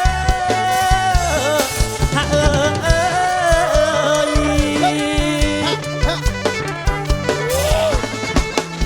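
Kantrum band playing an instrumental passage: a steady drum beat and bass line under a wavering, sliding lead melody.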